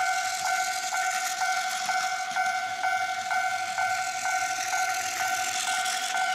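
Plarail toy level crossing's electronic warning bell ringing steadily at about two dings a second. A battery-powered Plarail E233-6000 series train whirs along the plastic track and passes near the end.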